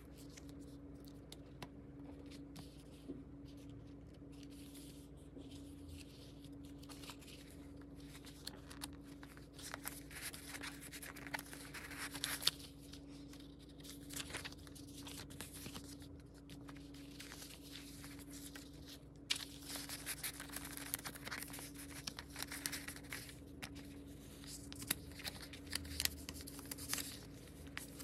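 Paper being handled: rustling and crinkling in bursts, with short tearing sounds, busiest in the second half, over a faint steady hum.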